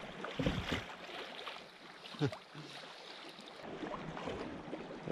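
Choppy sea water hissing and splashing against a sea kayak's hull, with a few small slaps of water.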